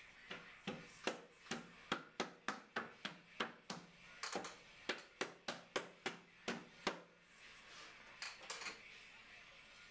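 A rapid series of sharp knocks on wood, two to three a second for about seven seconds, then two more near the end. A hand is striking the panels of a white oak case to seat its dowel joints.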